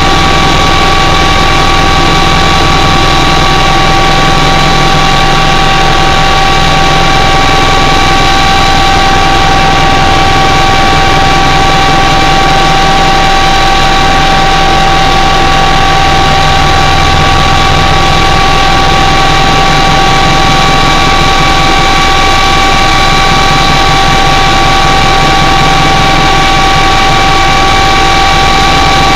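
Loud, steady engine noise heard inside the cabin of a small aircraft in low flight: an even rumble with a constant high whine on top, unchanging throughout.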